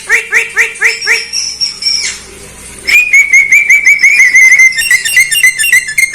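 Javan myna (jalak kebo) calling: a run of quick rising chirps, a short pause, then a rapid string of whistled notes with sharp clicks mixed in, loudest in the second half.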